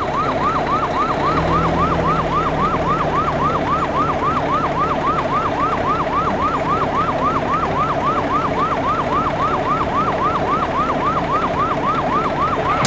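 Fire truck siren in a rapid yelp, rising and falling about three to four times a second over a steady low engine rumble, cutting off near the end.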